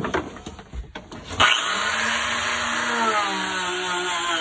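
RotoZip rotary tool fitted with a nonwoven Scotch-Brite-type abrasive disc, switched on about a second and a half in and then running steadily while it scrubs paint off the fibreglass hull. Its motor pitch wavers as it works.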